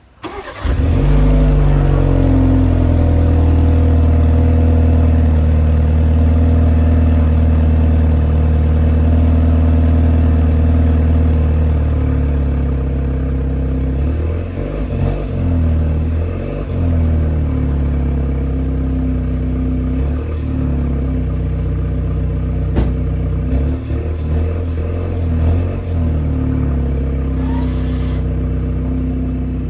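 BMW G21 320i's 2.0-litre turbocharged four-cylinder starting from cold: a brief crank, then it catches about half a second in and settles into a loud, steady high idle. The idle wavers in pitch for a while in the middle.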